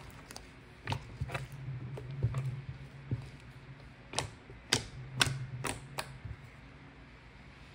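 About ten sharp clicks at irregular intervals, loudest and closest together from about four to six seconds in, over a low hum that comes and goes.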